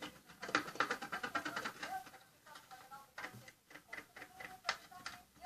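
Crayon rubbed over a plastic sour-cream tub in a run of quick, irregular scraping strokes as the tub is coloured in.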